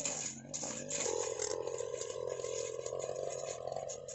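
Petrol brush cutter running as it cuts grass and weeds, with repeated swishing sweeps at first. About a second in it gives way to a steadier engine drone that rises slightly near the end.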